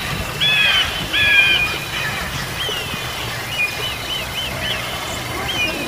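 A bird of prey calling: a series of high, shrill calls, two longer ones early, then falling calls and quick repeated short chirps, over a steady low rumble.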